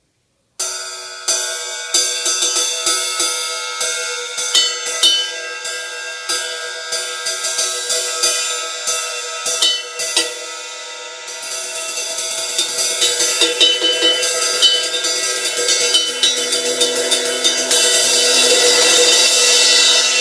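Zildjian ZHT 20-inch ride cymbal struck with a stick: single ringing strokes about once or twice a second, then from about 11 seconds in a fast, continuous pattern that builds into a loud shimmering wash near the end.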